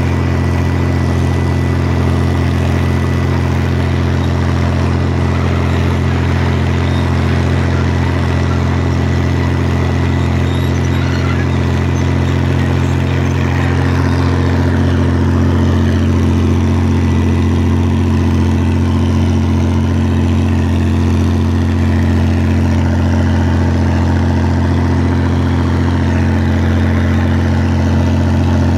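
Oliver 1655 tractor's diesel engine running steadily under load while pulling a cultimulcher, heard close up from the operator's seat.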